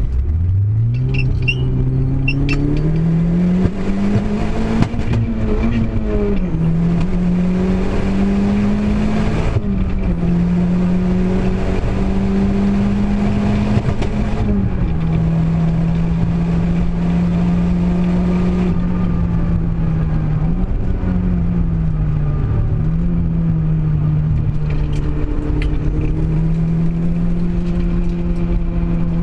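Renault Clio engine running, its pitch climbing in the first few seconds and then mostly held steady, with a few brief dips and shifts in revs. The car has a misfire.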